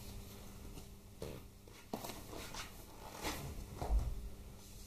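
Light clicks and knocks of tools and small metal parts being handled at the workbench, with a few heavier thuds about three to four seconds in, over a faint steady hum.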